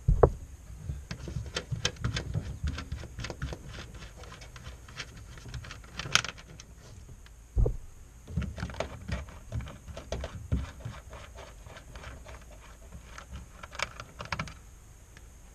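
Irregular small metallic clicks and rattles as the tail light's 8 mm nuts are wound off their studs and handled, with a couple of dull thumps against the car body.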